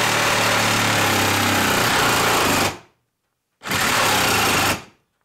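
DeWalt XR compact brushless reciprocating saw with a carbide-tooth blade sawing through screw-filled wood, its pitch sinking as it works. Near three seconds in it cuts out suddenly, then restarts briefly and cuts out again: the 1.5 Ah battery is failing under the load.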